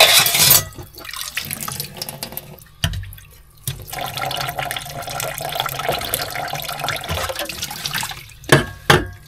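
Kitchen tap running into a stainless steel sink while dishes are washed by hand: water splashing onto cookware and a sponge scrubbing. There is a loud splash at the start, one knock about three seconds in, and two sharp knocks of cookware near the end.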